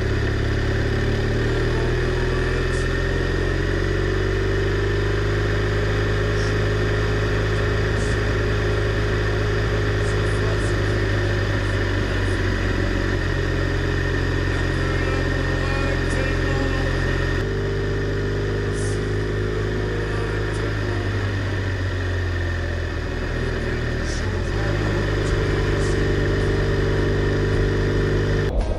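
BMW R1200R LC's boxer-twin engine running under way at road speed, its note shifting with throttle and changing abruptly a little over halfway, with wind noise rushing over the bike.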